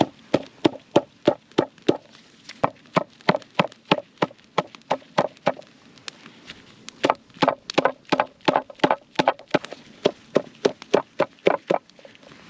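A wooden block pounding a dried fish on an end-grain wooden cutting board, sharp knocks about three a second with a short break midway: the dried flesh is being beaten soft so it can be torn into strips.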